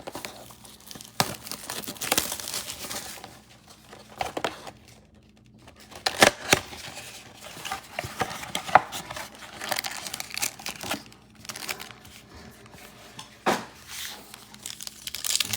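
Plastic wrapping of a trading-card box and its foil packs being torn open and crinkled: irregular rustling with sharp snaps, easing off briefly about five seconds in.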